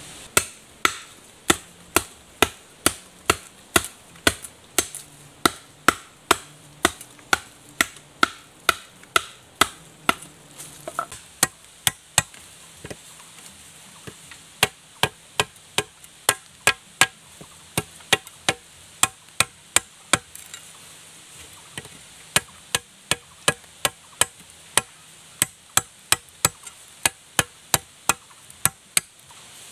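A large knife chopping into a fresh green bamboo pole: a long run of sharp, even knocks, about one and a half a second at first and nearer two a second after a short lull a little before halfway.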